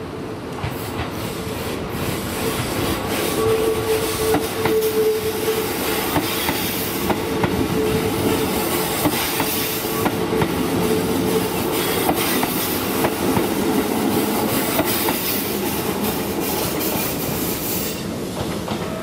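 Keikyu 1500-series electric train running close past on curved track, its wheels clicking over rail joints, with a brief steady whine about four seconds in. The sound grows over the first few seconds and falls away near the end as the train clears.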